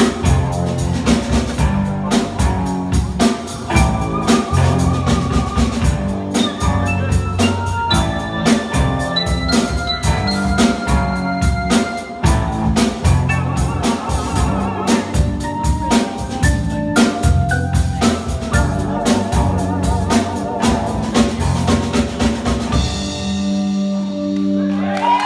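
Live rock band playing an instrumental passage on drum kit, bass, guitar and piano, with a busy beat under a melody line, ending on a held chord near the end.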